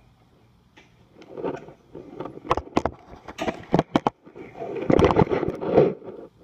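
Handling noise close to the microphone: rustling and scraping broken by a run of sharp clicks and knocks, growing busier toward the end, with no engine running.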